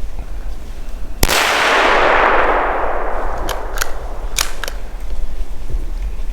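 A single gunshot about a second in, its report echoing and dying away over the next two seconds, followed by four short sharp clicks.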